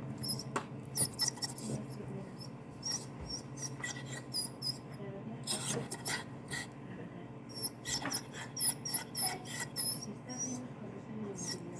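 Dog whining: a long string of short, high-pitched whimpers, many bending up or down in pitch, coming in quick irregular runs.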